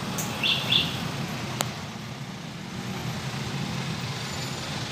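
Road traffic with vehicle engines running, a steady low rumble. Two short high chirps come under a second in, and a sharp click about one and a half seconds in.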